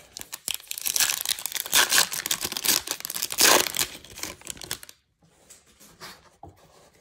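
Foil wrapper of a Topps Chrome hobby card pack being torn open and crinkled in the hands, a dense crackling that lasts about four seconds and stops near the end.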